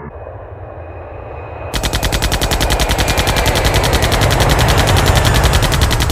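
Rapid-fire blaster shots as a cartoon sound effect, about ten a second. They start about two seconds in over a low rumble and grow louder toward the end.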